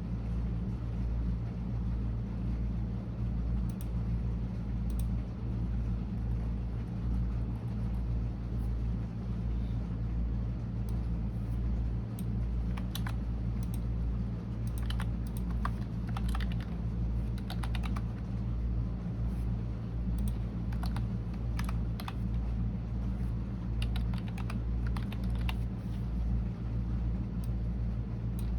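Computer keyboard typing: clicking keystrokes coming in irregular bursts, sparse in the first seconds and thicker in the middle and later part, over a steady low rumble.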